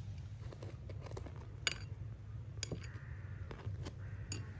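Light clicks and taps of a metal spoon and dishes being handled on a table, with a soft scraping near the end as the spoon works butter onto a flatbread. A steady low rumble runs underneath.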